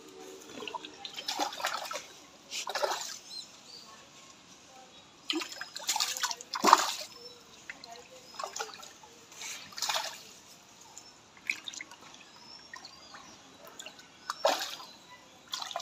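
A hooked fish thrashing at the pond surface, splashing and churning the water in short irregular bursts, the biggest splashes a little past the middle.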